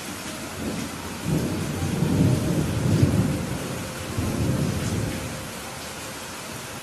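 Steady rain hissing, with a roll of thunder rumbling in about a second in, loudest in the middle and fading away before the end.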